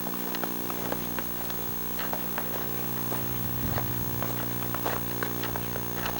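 Steady electrical buzz in the Sony Hi8 Handycam's recorded audio, loud and constant, with scattered small clicks over it.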